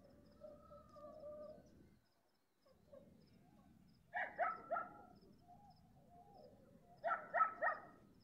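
A dog barking: two quick runs of three barks, about three seconds apart.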